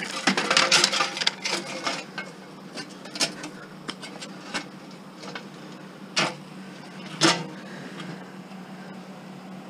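Tubular metal patio chair frame rattling and knocking as it is handled and bent by hand: a burst of clattering in the first two seconds, then a few separate knocks.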